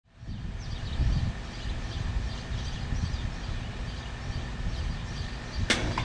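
Outdoor ambience: uneven low rumble of wind on the microphone with faint bird chirps. Near the end a single sharp click, the heat pump's contactor pulling in as the unit is called to start, then a faint hum.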